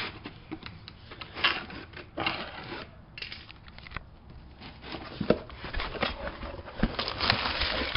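Handling noise: hands rubbing and scraping against a handheld camera and a box, in irregular bursts with scattered sharp clicks, busier near the end.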